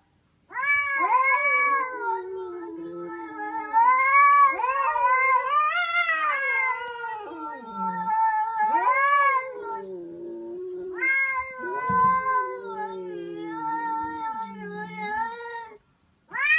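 A cat yowling in long, wavering, drawn-out meows, almost without pause for about ten seconds, then after a brief break once more for about five seconds.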